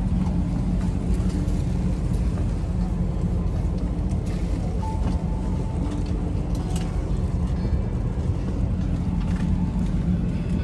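Steady aircraft cabin noise inside an Airbus A320-200: a low, even hum with a rush of air, and a few light clicks.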